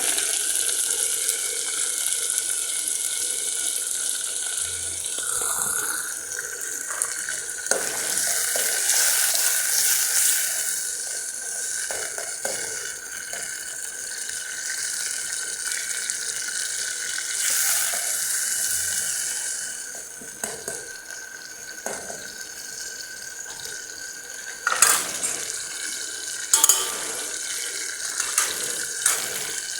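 Tomatoes frying in a pan, a steady sizzle, with a few sharp knocks of a cooking spoon against the pan near the end.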